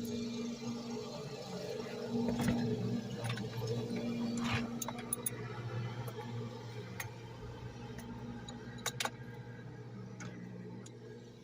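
Scattered metallic clicks and clinks of a ratchet handle and loose sockets being handled while a socket is tried for size, over a steady low hum.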